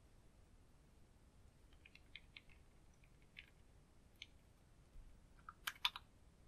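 Small plastic clicks and ticks as the cap of a purple plastic makeup bottle is twisted and unscrewed: a few faint ticks, then a louder pair of clicks near the end.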